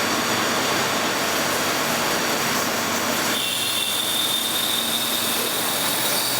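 Goodway GA-2600M CNC lathe running in a cut with a steady rushing machining noise. About three seconds in, the sound changes and a steady high whine sets in.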